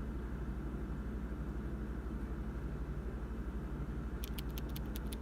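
Steady low rumble of background ambience. Near the end, a rapid run of light, sharp clicks begins.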